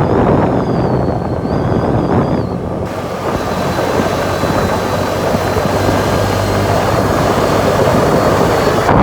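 CFMoto four-wheeler's engine running steadily as the ATV is ridden, with wind noise on the microphone.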